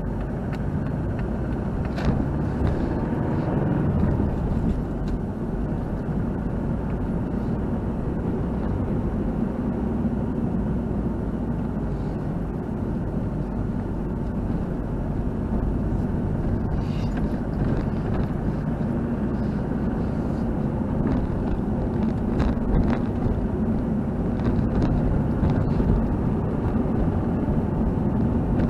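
Car driving slowly on a narrow road, heard from inside the cabin: a steady low hum of engine and tyres, with a few brief knocks or clicks.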